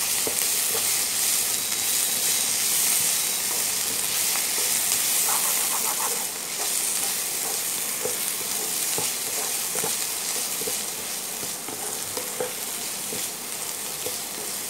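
Mutton chukka with shallots and coriander leaves sizzling steadily as it fries in a pan. A wooden spatula stirs through it, scraping and knocking lightly against the pan now and then.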